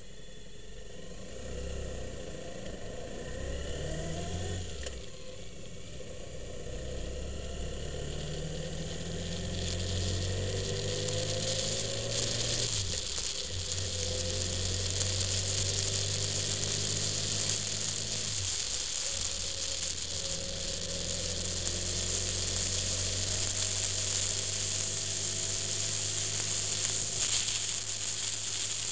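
Vehicle engine heard from inside while pulling away and accelerating through the gears: its pitch climbs, drops at gear changes about 13 and 18 seconds in, then climbs again. Wind and road noise build up as the speed rises.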